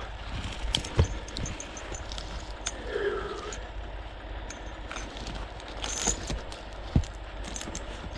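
Logging chain and steel wire rope being handled to hitch a log: scattered metallic clinks and knocks of the chain links, two sharper knocks about a second in and near the end.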